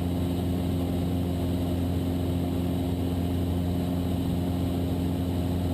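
Cessna 172's piston engine and propeller droning steadily in flight, a constant low hum with no change in power.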